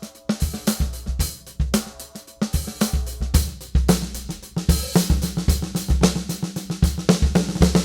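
A drum kit groove played on a Gretsch Rosewood snare, with bass drum and hi-hat/cymbals; about halfway through the strokes come much thicker and faster, with the snare's ringing body tone running under them.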